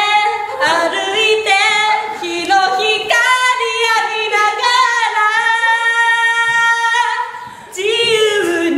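A woman singing unaccompanied, with sliding, wavering notes and one long held note in the middle.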